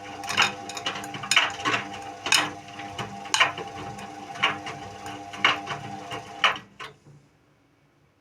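Indesit WIU81 front-loading washing machine turning its drum during the wash: a steady motor hum with sharp knocks and clicks about once a second. The drum stops about seven seconds in.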